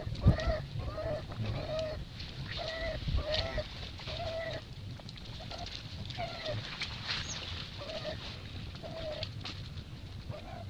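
An animal calling in short, arched, pitched cries, about two a second, thinning out after about six seconds, with a sharp click just after the start.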